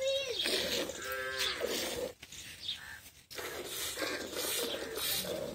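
A cow moos twice, briefly, in the first two seconds. Over it and after it comes the rhythmic hiss of milk squirting into a steel pot as the cow is milked by hand.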